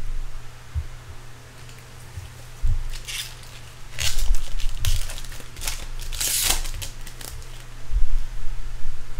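A foil trading-card pack being torn open, its wrapper ripping and crinkling in several short rips from about three seconds in, the longest near the end of that stretch. Soft handling bumps and a low steady hum sit underneath.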